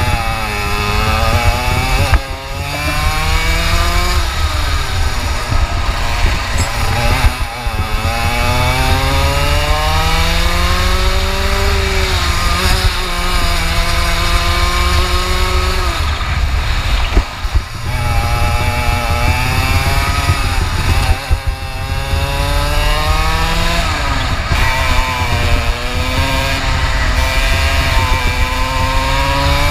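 Two-stroke 125 cc kart engine at racing speed, its pitch climbing in long sweeps as it revs out and falling abruptly about four times as it comes off the throttle for corners.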